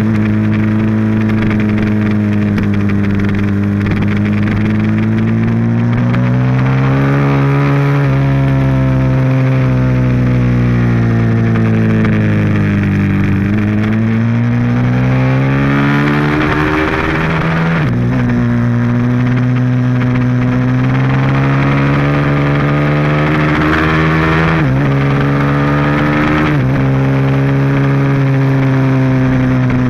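Ducati 1098S L-twin motorcycle engine at speed on a race track, recorded onboard. The engine note climbs and falls with the throttle, dips about halfway through as the bike slows for a corner and then builds again, and jumps in pitch several times as gears change, under rushing wind.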